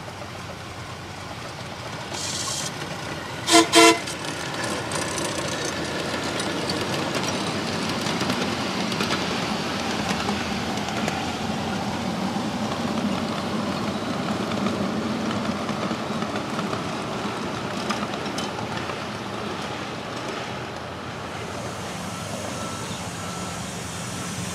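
Two short toots from a ridable miniature locomotive about three and a half seconds in, followed by the steady noise of the small trains running on the track.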